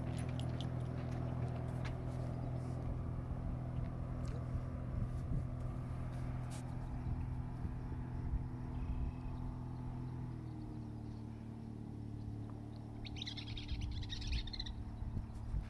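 A motorboat engine drones steadily as the boat runs across the lake, its pitch shifting a little about ten seconds in. A bird calls briefly near the end.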